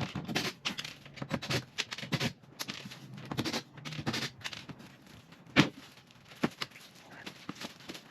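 Irregular clicks, taps and scrapes from handling a cabinet door and its hinge hardware, with one sharper knock about five and a half seconds in.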